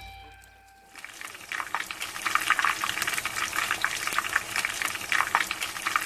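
Potato croquettes deep-frying in hot oil: a dense, steady crackling sizzle that comes in about a second in as music fades out.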